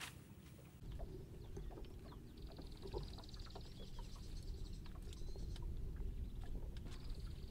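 Bundles of long grass stems rustling and knocking against bamboo slats as they are handled and laid out on a bamboo platform, with many small clicks and knocks. A rapid high-pitched trill runs for about two seconds in the middle and starts again near the end, over a steady low rumble.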